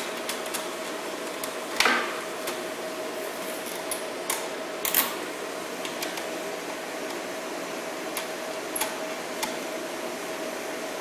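Ground clamp cable connector being plugged into the front socket of a Multiplaz 3500 plasma welder: a few sharp clicks and knocks, the loudest about two seconds in. Under them the welder's cooling fans hum steadily.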